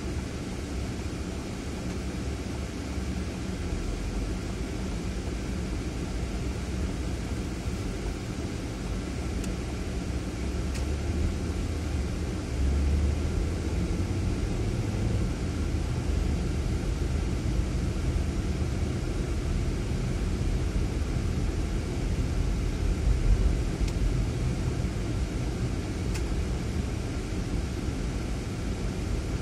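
Low, steady rumble of a Ford Fiesta's engine and tyre noise, heard from inside the cabin, growing louder about twelve seconds in as the car pulls away from a stop and drives on a wet road.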